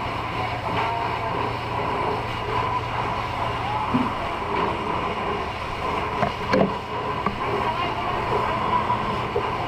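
An engine running steadily under a background of voices, with a few short knocks. A low hum underneath cuts out about four seconds in.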